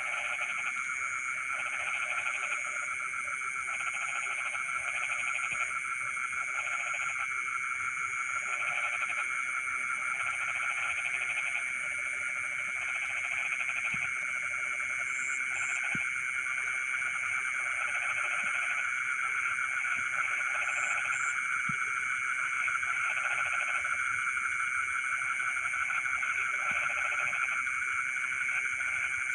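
A chorus of frogs calling in a rice field at night. A continuous high trill runs underneath, with lower calls repeating in short bursts about every second and a few brief high chirps now and then.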